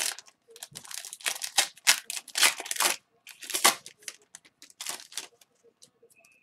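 Foil wrapper of a hockey card pack being torn open and crinkled as the cards are pulled out: a run of sharp rustles and crackles that thins out about five seconds in.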